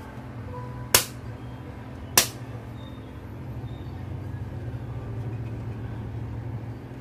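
A steady low machine hum, a little louder in the second half, with two sharp clicks, one about a second in and another about a second later.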